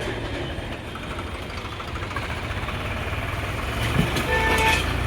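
Diesel engine of a JCB 3DX backhoe loader running steadily under load with a low rumble. About four seconds in, a short knock is followed by a brief steady higher tone lasting about half a second.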